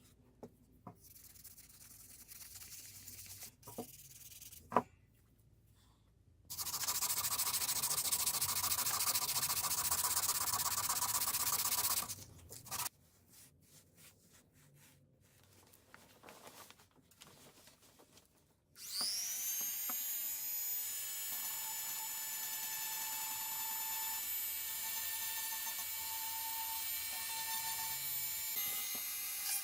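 Light clicks and handling knocks, then a stretch of steady rough whirring, then a small high-speed rotary power tool spins up with a quickly rising whine and runs steadily. The tool is working on parts of a vintage brass blowtorch being restored.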